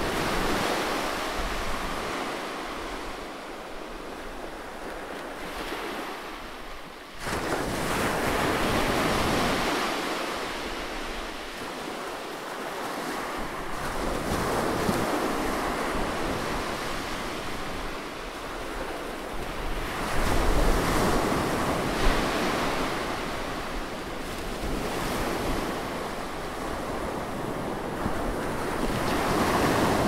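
Small waves breaking and washing up a sandy beach, the surf rising and falling in slow swells, with a sudden louder surge about seven seconds in. A low rumble joins the surf around twenty seconds in.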